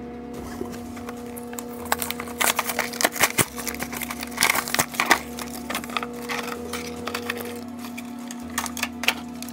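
Crackling and snapping of a plastic blister pack and its cardboard backing being pulled open, densest from about two to five seconds in and again near the end, over background music.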